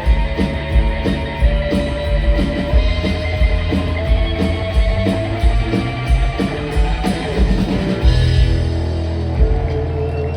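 Live band playing an instrumental passage of a roots-rock song: electric guitar holding long lead notes over a steady drum beat and bass. About eight seconds in, the beat drops out briefly under a held chord before picking up again.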